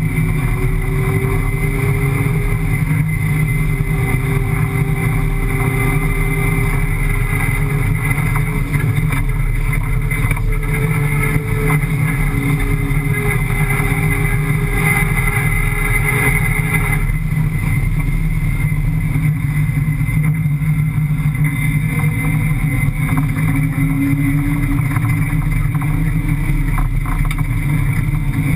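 A rally car's 5.7-litre Hemi V8 running steadily at speed over sand, heard from inside the cockpit. The higher part of the sound thins a little about two-thirds of the way through.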